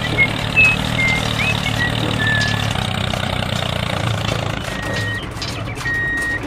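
Heavy construction vehicle's engine running steadily, with a few short high chirps in the first couple of seconds. Near the end a reversing alarm starts beeping, a half-second beep about once a second, as the vehicle backs up.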